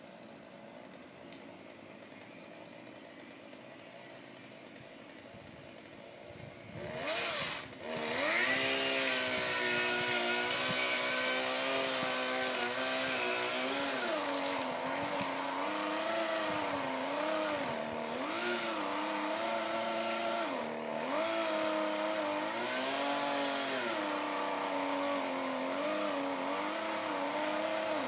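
A faint steady hum, then about seven seconds in a chainsaw starts up and runs loudly for the rest of the time, its engine pitch rising and dipping again and again.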